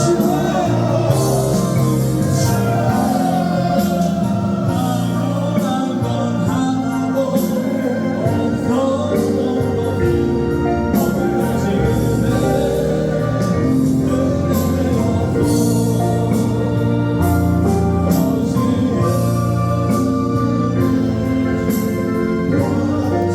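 Gospel praise music: singing over a band with a steady beat.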